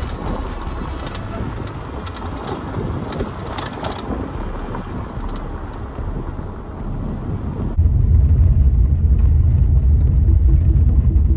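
Car driving with steady engine and road noise. Just under eight seconds in it changes abruptly to a much louder low rumble.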